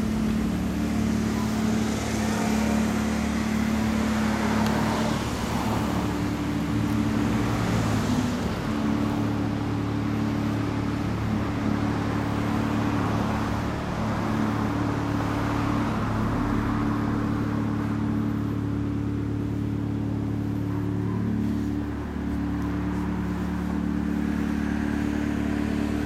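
1988 Honda CBR250R Hurricane's 250 cc four-cylinder gear-driven-cam engine running at a steady idle through a Daishin Racing aftermarket exhaust.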